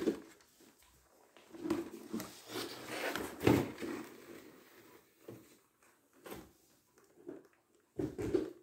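Cardboard box and packing inserts being handled: irregular scrapes and rustles as a hand works inside the open box and shifts its contents, the loudest about halfway through.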